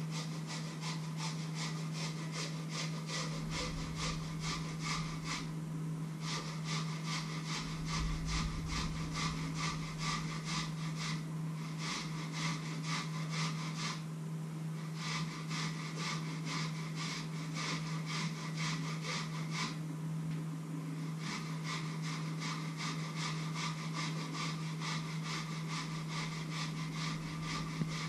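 Potatoes being peeled by hand: quick, even scraping strokes, about two or three a second, in runs broken by short pauses, over a steady low hum.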